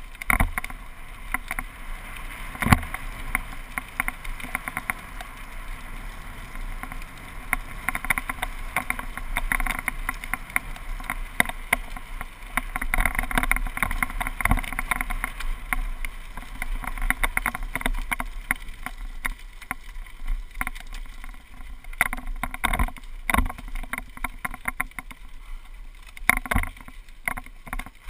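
GoPro camera mount rattling steadily as the mountain bike runs down a gravel path, with a few harder knocks over bumps. The rattle thins out near the end as the bike slows to a stop.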